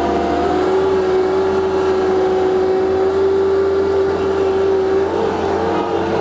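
Compact loader's diesel engine running steadily at high revs, with a strong held whine; the pitch shifts slightly about five seconds in.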